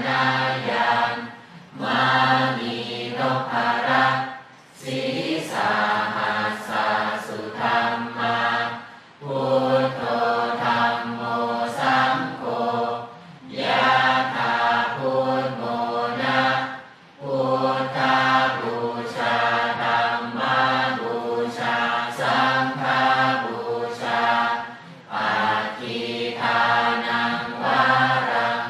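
A crowd chanting a Buddhist chant in Pali together in unison, in long phrases broken by short pauses.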